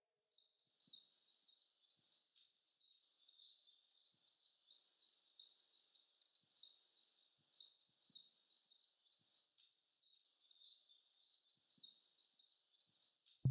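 Faint, high bird chirping: quick, repeated short notes, several a second.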